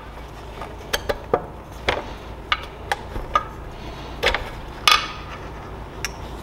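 Piston and connecting rod of a Predator 212cc Hemi engine being pushed up out of the cylinder by hand: a series of scattered metallic clinks and knocks as the parts shift against the bore and block, the loudest and most ringing one about five seconds in.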